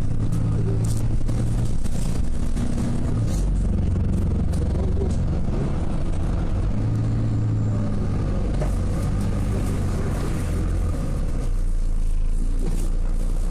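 Engine and road noise of a moving vehicle, heard from inside it: a steady low rumble whose engine note shifts as it goes, dropping about eleven seconds in.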